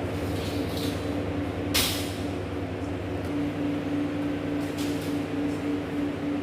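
Noodle-making machine running steadily with a constant motor hum, with a sharp clack just under two seconds in and a few fainter clicks.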